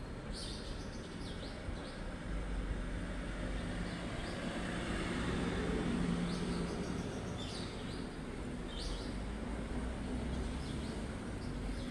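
Outdoor ambience: a steady low rumble that swells and fades about midway, with short high bird chirps now and then.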